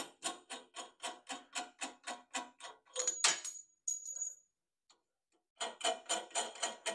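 Air filter cover and knob being worked loose by hand on a Kawasaki V-twin engine: rapid, even clicking, about four clicks a second, in two runs, with a louder clatter and a brief metallic ring about three seconds in.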